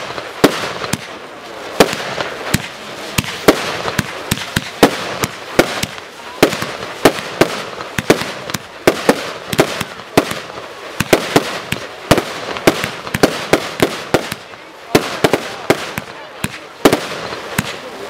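Epic Fireworks 'Super Charged' barrage firing continuously: sharp bangs about two to three a second with crackling between them.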